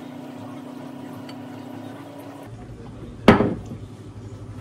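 A steady low hum, then about three seconds in a single sharp knock of something being set down on the kitchen worktop.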